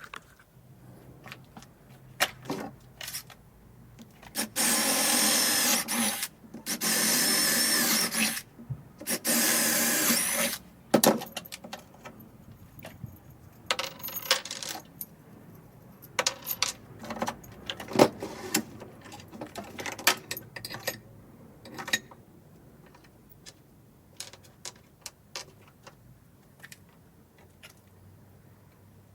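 Electric drill running in three bursts of about a second and a half each, then scattered knocks and clicks of tools and parts being handled.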